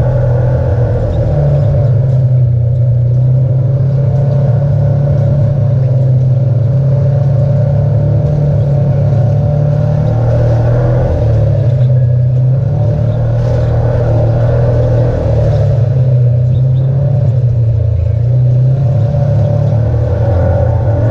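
Side-by-side UTV engine running as it drives along a dirt trail, heard from on board; the pitch shifts a little up and down with the throttle.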